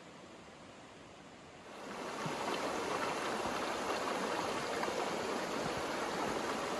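Creek water running, a steady wash that grows louder about two seconds in.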